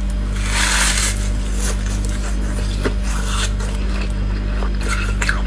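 Teeth biting and scraping into a block of hard frozen ice, then scattered crunches and crackles as the ice is chewed, over a steady low electrical hum.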